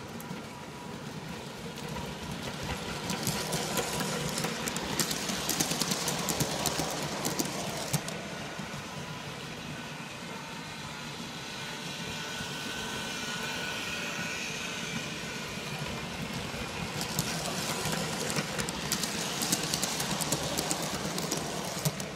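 G scale model trains running on a track loop: a steady whir, with two stretches of rapid clicking that grow louder, about three seconds in and again near the end.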